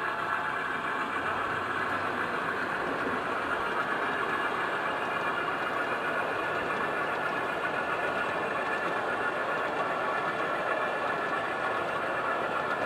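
Steady mechanical running noise at an even level, with no breaks or separate events.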